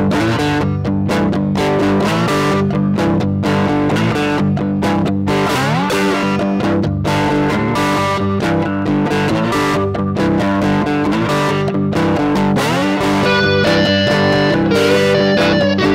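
Blues played on electric guitar: a steady, rhythmic strummed groove, with two rising slides up the neck, about six seconds in and again past the middle.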